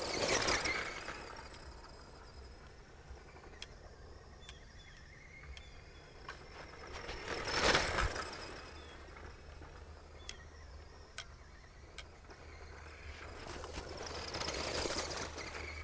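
Electric radio-controlled dune buggy (Tamiya Sand Rover) driving on loose dirt and passing close by three times: about half a second in, near the middle, and near the end. Each pass swells up with the motor and tyres and fades away between passes.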